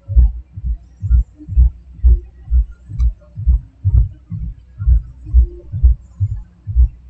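Low rhythmic thumping, about two beats a second, steady and even.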